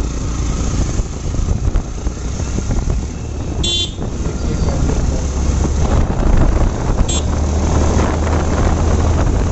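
Yamaha motorcycle engine running under way with road and wind noise, getting louder in the second half as the bike speeds up. Two short, high toots cut through, about a third of the way in and again just past two-thirds.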